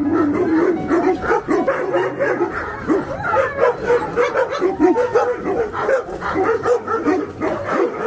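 Several dogs behind a steel-bar kennel fence whining, yelping and barking over one another without a break, the excited clamour of dogs greeting their returning owner.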